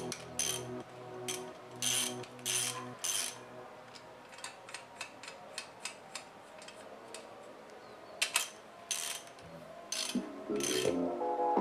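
Ratchet wrench clicking in repeated bursts of strokes as the cylinder head nuts are run down, quieter for a few seconds in the middle.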